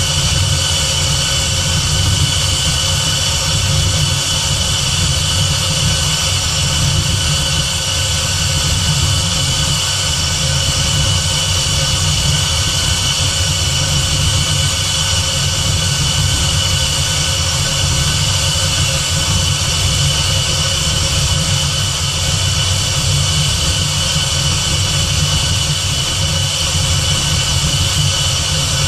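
Supercharged 4.6-litre DOHC V8 of a Terminator-swapped Fox-body Mustang idling steadily and evenly while it warms up to bleed air from the cooling system.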